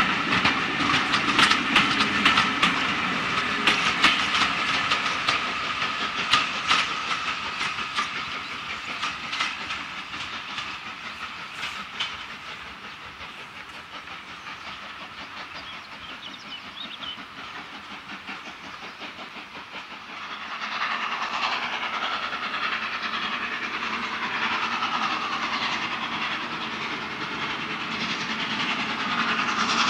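A steam-hauled train of coaches running away, its wheels clicking over the rail joints, the clicks fading out over the first dozen seconds. About two-thirds of the way through, the sound jumps to an approaching steam locomotive, LNER V2 2-6-2 60800 Green Arrow, hauling its train.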